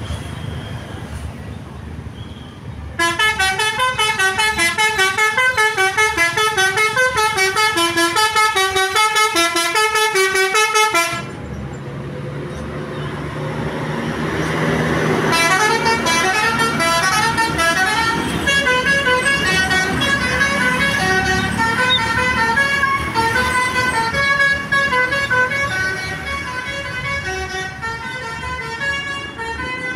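Basuri V3 telolet bus horn, a multi-tone musical air horn, playing a fast run of short stepped notes for about eight seconds. After a few seconds of engine and road noise it plays a longer, slower tune.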